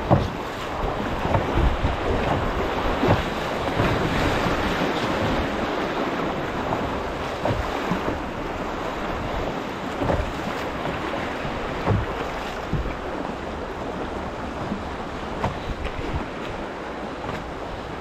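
Fast, swollen river water rushing around a solo canoe, with wind buffeting the microphone and irregular knocks from the paddle strokes every second or two. The rush eases slightly in the second half.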